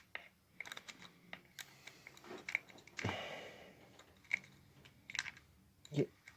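Scattered small clicks and taps of small metal parts and an Allen wrench being handled during close fiddly work, with a short vocal sound about three seconds in.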